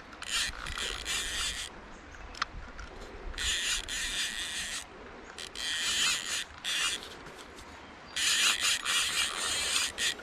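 A fishing reel is being cranked in four rasping bursts, each about a second and a half long, with short pauses between them as line is reeled in on a hooked fish.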